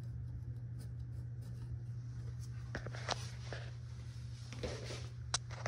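A steady low hum in a small room, with a few faint rubbing and tapping sounds from about halfway in and one sharper click near the end.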